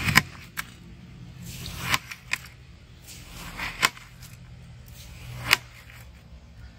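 Large kitchen knife slicing through watermelon flesh in four long strokes, each a crisp, juicy crunch that swells and ends in a sharp click.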